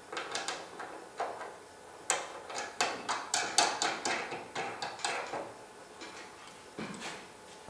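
Wing nuts being hand-tightened onto the leg bolts at the metal corner brackets of an upside-down wooden table: a run of short, irregular clicks and knocks for about five seconds, then one more knock near the end.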